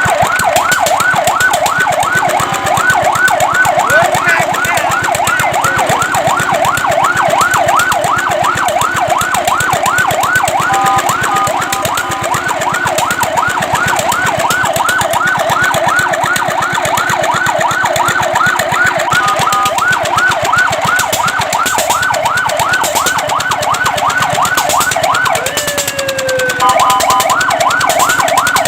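Fire truck siren in a fast rising-and-falling yelp, several cycles a second, broken a few times by short steady tones. Near the end a slow falling glide cuts in before the yelp resumes.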